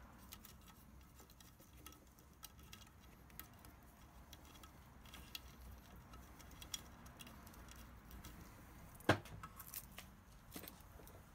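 Quiet, scattered small clicks and taps of hands handling an electric scooter's motor cable and plastic parts, with one sharper click about nine seconds in.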